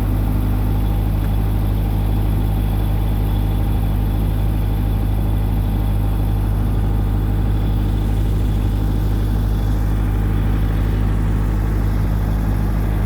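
Diesel engine of a New Holland LB75 backhoe loader running steadily at a constant speed while the machine digs.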